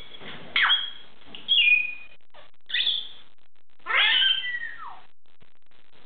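Blue-and-gold macaw giving four loud, short calls with sliding pitch in the first five seconds, the last one the longest.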